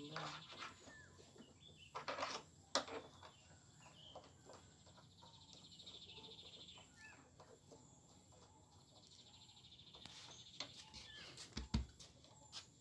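Quiet handling noise as woofers are fastened into a double 18-inch subwoofer box: a few sharp clicks of screwdriver and screws, loudest about three seconds in, and a low thump near the end. Faint chirping in the background.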